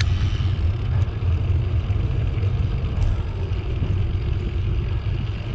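Steady, fluttering low rumble of wind buffeting the microphone while riding a bicycle.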